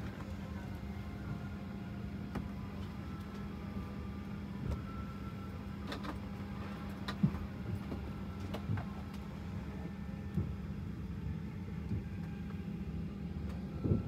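Steady low hum of an airliner cabin at the gate, with a few scattered knocks and clicks from passengers settling in; the loudest knock comes about seven seconds in.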